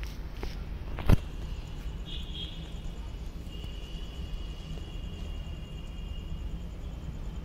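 Outdoor ambience: a steady low rumble, a single sharp knock about a second in, and a faint thin high tone that comes in twice and holds for a few seconds.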